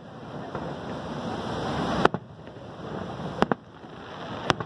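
Fireworks shells exploding: three sharp bangs, the loudest about two seconds in, another near three and a half seconds and one just before the end, over the steady rushing roar of the waterfall.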